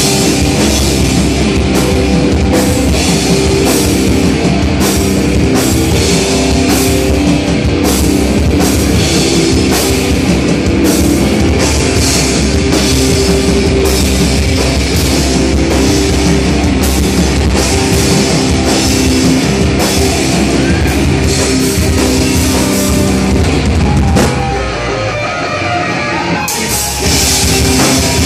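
A live heavy rock band playing loud: distorted electric guitars, bass guitar and a drum kit with regular cymbal hits. About 24 seconds in the band drops to a quieter, thinner passage for a few seconds, then the full band comes back in.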